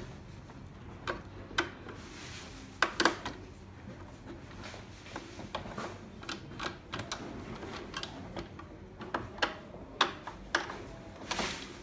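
Irregular clicks and knocks of a screwdriver and hands on the plastic hopper housing of a Melitta Passione coffee machine being taken apart. The loudest knocks come about three seconds in and again near the end.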